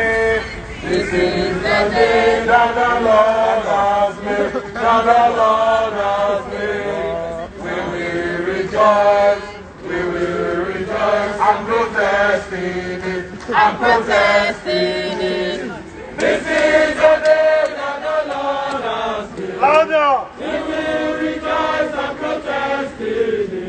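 Crowd of protesters chanting in unison, voices continuing throughout with rhythmic rises and falls.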